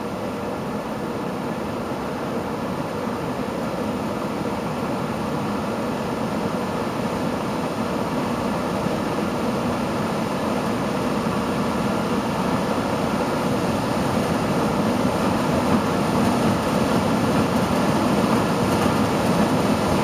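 Variable-speed blower in a Goodman AEPF air handler ramping up: a steady rush of air and motor noise growing gradually louder as its current draw climbs. A light rattle in it is put down to a loose baffle plate inside the cabinet.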